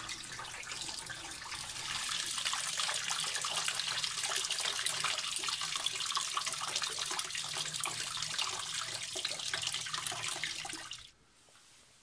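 Standing water from the tub of a washing machine that will not drain, pouring steadily out of a released drain-pump fitting and splashing into a plastic basin. It cuts off abruptly near the end.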